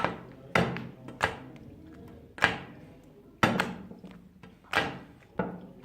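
Slime softened with shaving foam being squeezed and pressed by hand, giving about seven sudden squelches at uneven intervals.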